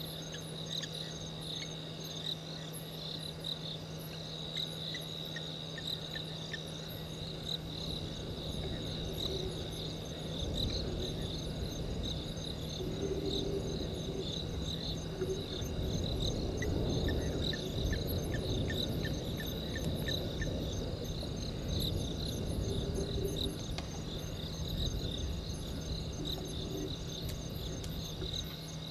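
Crickets chirring in a steady chorus, with a constant low hum underneath. A louder low rumble rises through the middle and eases off again.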